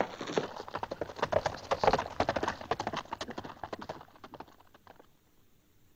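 Hoofbeats of a horse being ridden off at speed, a rapid clatter that thins out and fades away about four to five seconds in.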